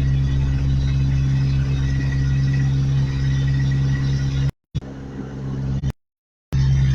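Steady low drone of a truck's engine and road noise heard from inside the cab while driving, broken by two brief dropouts to complete silence, about four and a half and six seconds in.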